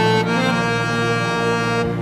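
Background music with long held notes that shift in pitch about once a second.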